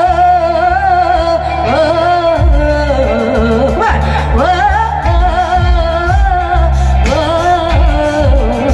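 Female vocalist singing a Bollywood song live with a band over a PA system. She sings long melodic lines with vibrato, and a bass-heavy drum beat comes in about two seconds in.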